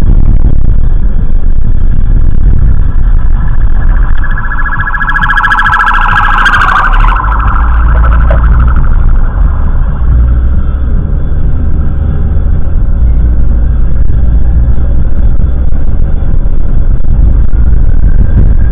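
Steady low rumble of a vehicle driving, heard through a dashcam's microphone. A horn blares for about three seconds, starting about four seconds in.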